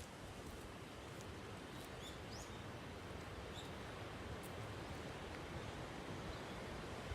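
Faint steady outdoor ambience with a low wind rumble, and a few short, high bird chirps about two and three and a half seconds in.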